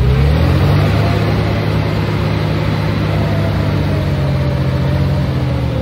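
Dump truck's diesel engine revving up, held at high revs for several seconds, then dropping back just before the end, as when the engine drives the hydraulic hoist to tip the bed.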